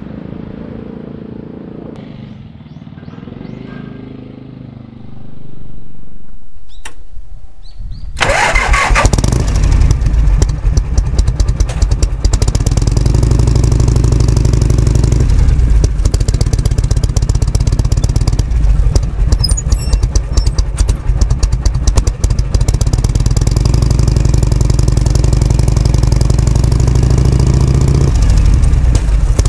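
Harley-Davidson Shovelhead V-twin engine is started about eight seconds in, after a few clicks. It then runs loud and pulsing at idle, its revs changing a few times.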